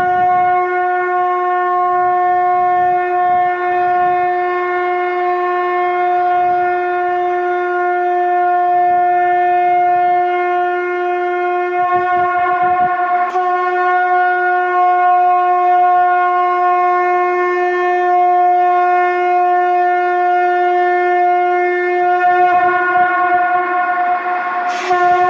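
Conch shell (shankh) blown in long sustained blasts: a steady, unwavering pitched tone with many overtones. One blast breaks off about thirteen seconds in and the next starts at once, holding to near the end, where another begins.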